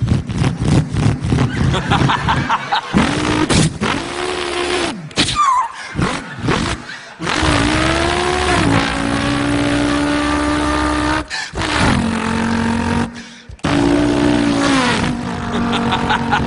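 A man imitating a V8 car with his voice, most likely a Holden Torana: crackling pops at first, then several engine revs that climb in pitch, hold, and break off suddenly like gear changes.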